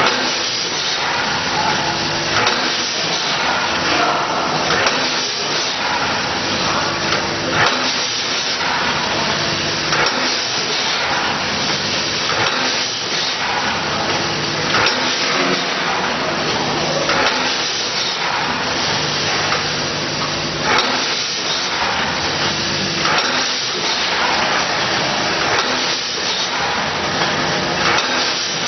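Vertical form-fill-seal packaging machine running: a steady hiss with repeated clacks and a low hum.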